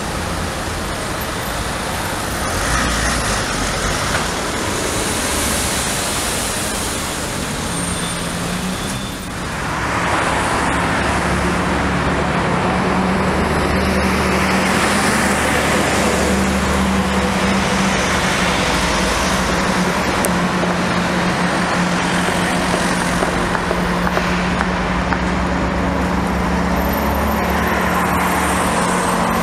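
Steady city road traffic noise of passing vehicles. A steady engine hum comes in about eight seconds in, and the traffic grows louder a couple of seconds later.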